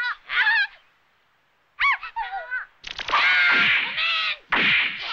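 Cartoon characters' voices crying out in short shouts and yelps with sharp swoops in pitch, in several bursts with a pause about a second in.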